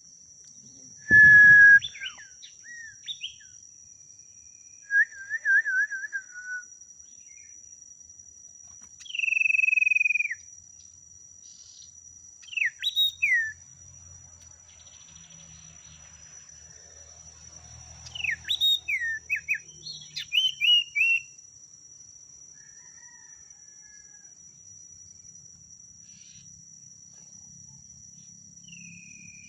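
Small songbird giving separate clear whistled notes and quick down-slurred chirps, with a short trill and one long, slightly falling whistle, spaced by pauses. A steady high thin whine runs underneath, and a short thump comes at the first note.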